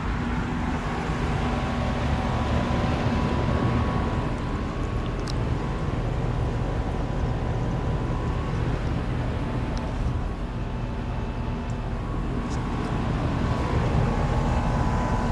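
Lennox heat pump outdoor unit running: a steady hum of the compressor and condenser fan, with a few faint ticks.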